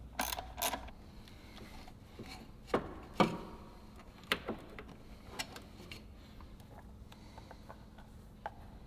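Scattered clicks, rattles and knocks of hand tools and metal hose clamps as an air inlet pipe is loosened and pulled off an engine's throttle body, with two sharper knocks about three seconds in.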